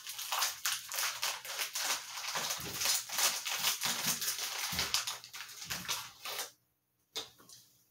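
Crinkling and rustling of a clear plastic wrapper being peeled off a sleeve of cookies. It stops suddenly about six and a half seconds in, followed by one short click.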